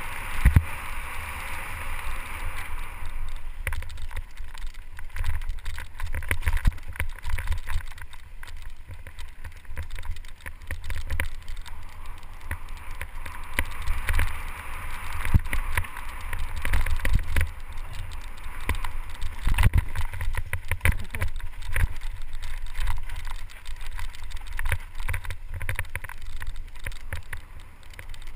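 Mountain bike riding fast down a dirt trail: a constant low rumble of wind on the microphone, with tyres crunching over dirt and rocks and many irregular rattles and knocks from the bike over bumps.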